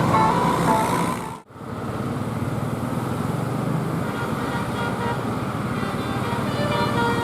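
Telolet bus horn playing a stepping multi-note melody, cut off abruptly about a second and a half in. Steady engine and traffic noise follows, with horn tones coming back near the end.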